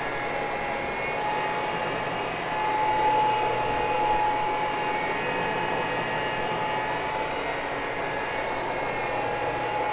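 Carpet cleaning machine's motor running steadily as it works across loop carpet, a continuous hum with a high whine that swells slightly about three seconds in.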